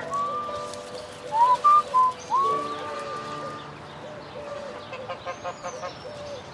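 A tune whistled in a few notes that glide up and then hold, over a soft accompaniment, ending after about four seconds. Birds call in the background: a low note repeats about every half second, with a few high chirps.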